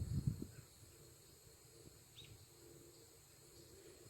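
Faint steady chirring of insects, with a brief low rumble of thuds at the start and a single short, falling chirp about two seconds in.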